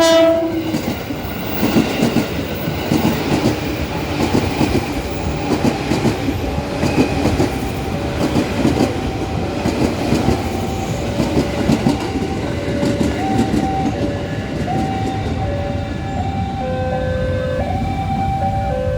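Loud rumbling, rattling vehicle noise, and past the middle a run of held tones stepping up and down in pitch.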